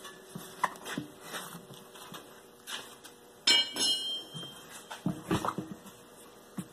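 A rubber tire being worked by hand on a steel trailer wheel clamped in a tire-changing machine: scattered rubbing and light knocks, with one sharp metallic clink about three and a half seconds in.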